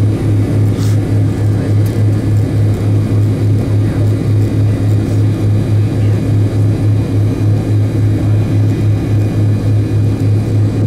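Delta MD-88's rear-mounted Pratt & Whitney JT8D engines running at idle, heard inside the rear cabin as a loud, steady low drone. The drone throbs evenly about three to four times a second.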